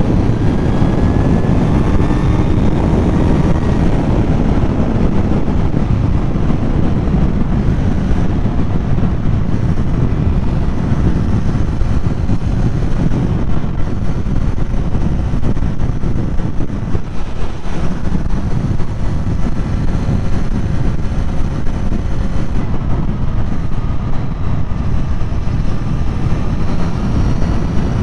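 Kawasaki Z900 ridden at highway speed: a steady rush of wind on the microphone over the inline-four engine running, its pitch drifting slightly up and down.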